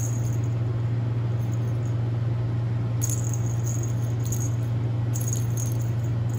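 Small bell ball on a cat wand toy jingling in short bursts, about five times, as a cat bats and grabs it, over a steady low hum.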